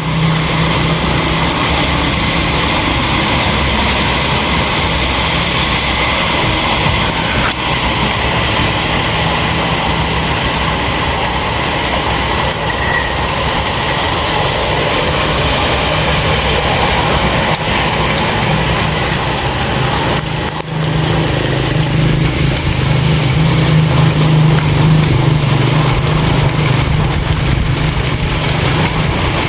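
Steady rain falling. Under it runs a low, steady hum that gets louder after a brief dip about two-thirds of the way through.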